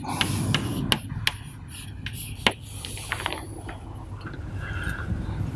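Chalk writing on a blackboard: several sharp taps as the chalk strikes the board, with short scratchy strokes in between.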